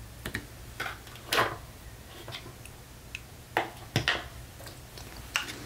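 Hands handling paper craft pieces on a cutting mat: a few scattered light taps and clicks with soft paper rustles, over a faint steady low hum.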